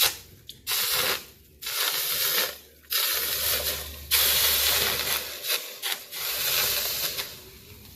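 Water striking a red-hot pane of Neoceram ceramic fireplace glass and hissing into steam, in about five separate bursts of a second or so each. This is the thermal-shock test of heat-resistant glass.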